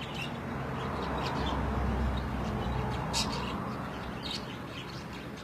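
A few short, sharp bird calls over a steady rushing background noise.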